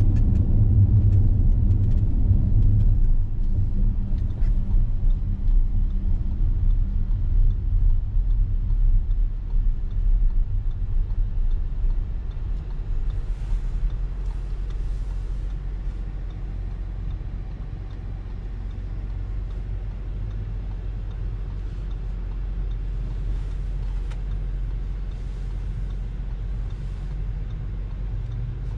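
Low rumble of an Audi Q7's V6 engine and tyres while being driven, louder for the first dozen seconds, then settling to a steadier, quieter hum.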